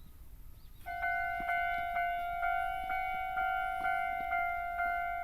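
Japanese level crossing warning bell starting about a second in and ringing steadily at about two strokes a second, each stroke a ringing tone that fades before the next: the signal that a train is approaching.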